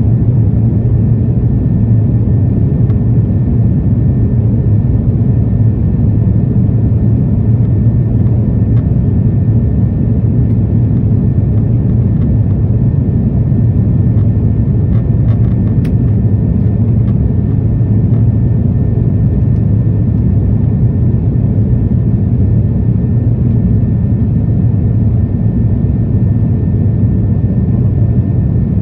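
Jet airliner cabin noise heard at a window seat on approach: a steady low rumble of engines and airflow, with a faint steady high whine above it.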